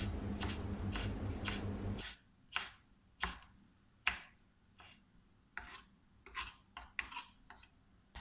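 Kitchen knife chopping fresh ginger finely on a wooden cutting board: a series of sharp taps of the blade on the board, about two a second at first, then more spaced out and irregular.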